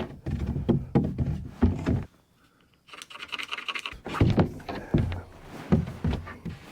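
Wooden 2x4 boards being handled: a run of irregular knocks and thumps, a short scrape about three seconds in, then more knocks.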